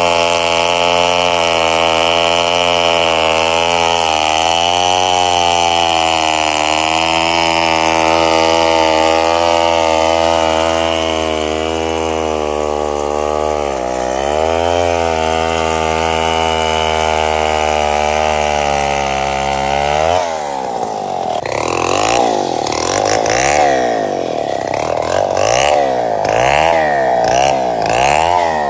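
Chainsaw running at high speed, its pitch sagging and recovering as it works. About two-thirds of the way through, the engine speed starts swinging up and down rapidly and over and over.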